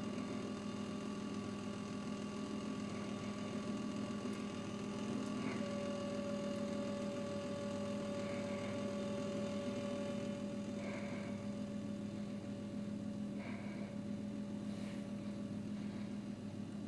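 Steady low electrical hum, with a second, higher steady tone joining for about five seconds in the middle. A few faint clicks are scattered through it.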